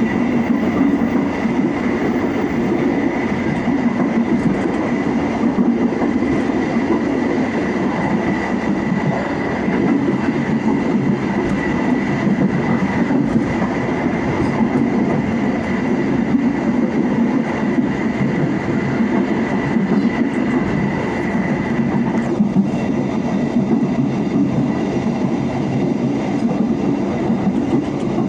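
Passenger train running at speed, heard from the rear of the last coach: a steady rumble of wheels on the rails with clickety-clack over the rail joints. A thin, steady high whine rides on top and stops about three-quarters of the way through.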